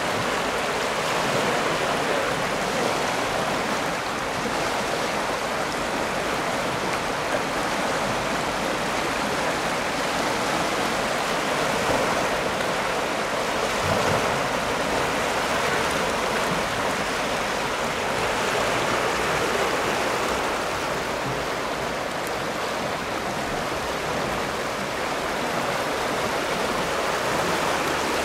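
The River Stour in flood after heavy rain, its swollen water rushing and churning in turbulent standing waves, a steady, unbroken rush of moving water.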